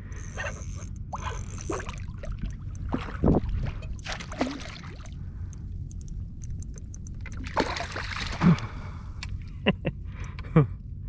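Water sloshing and splashing around a kayak, with several separate knocks and handling sounds against the hull, as a redfish is brought in on light tackle.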